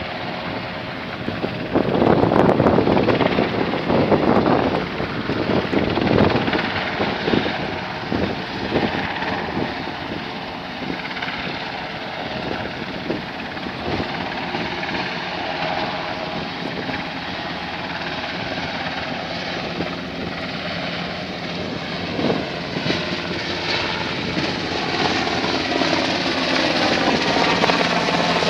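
HM Coastguard search-and-rescue helicopter flying, its rotor and engines running steadily and growing louder over the last few seconds as it comes close overhead.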